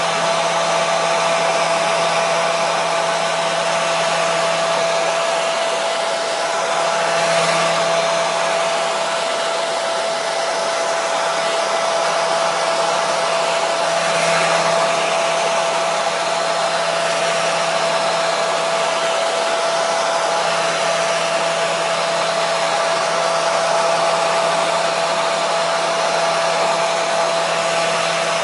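Hair dryer running continuously at a steady level, an even rushing hiss of blown air with a constant motor hum and whine in it.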